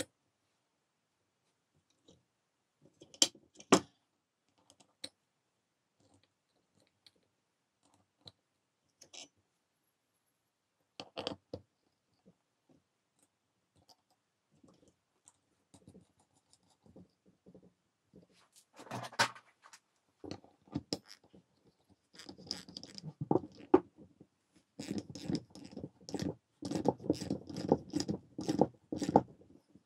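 Metal parts of an old Dacia alternator being handled: scattered clinks and taps as the cooling fan and pulley are fitted onto the shaft, then a denser run of clattering and scraping over the last several seconds as the alternator is picked up and turned.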